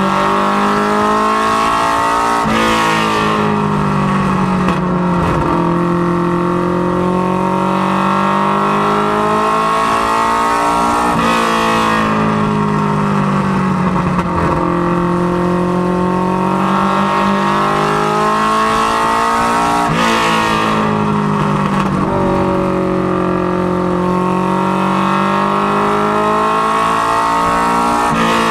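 Mustang notchback Ministock race car's engine at racing speed, heard from inside the cabin. The engine note drops as the driver lifts for each corner and then climbs steadily again under acceleration, three times, about nine seconds apart, once per lap.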